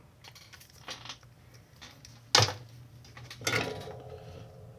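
Small clicks and taps of soldering tools being handled and set down on a workbench, with a sharp click about two and a half seconds in and another a second later, over a low steady hum.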